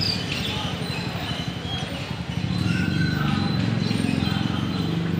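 A low, fast-pulsing engine rumble, louder from about halfway through, with faint voices in the background.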